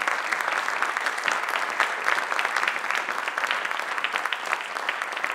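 Audience applauding: many hands clapping at once in a dense, steady mass of claps.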